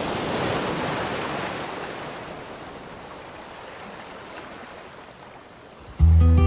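Choppy, wind-driven lake waves lapping and splashing on the shore, growing quieter after the first couple of seconds. Near the end, music cuts in with a loud plucked acoustic guitar note.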